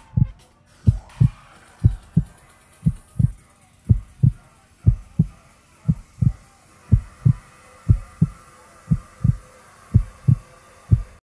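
Heartbeat sound effect: paired low lub-dub thumps about once a second over a faint steady hiss, with a brief rising swoosh about a second in. It cuts off suddenly near the end.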